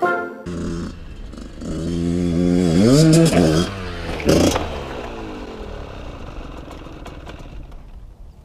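Dirt bike engine revving, its pitch climbing over a couple of seconds, then a sharp knock about four seconds in, after which the engine note falls and fades away.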